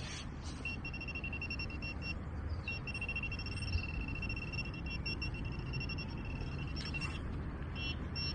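Metal detecting pinpointer sounding over a target in the dig hole: a high electronic beep, rapid pulses that merge into a near-steady tone for several seconds, then break back into pulses near the end.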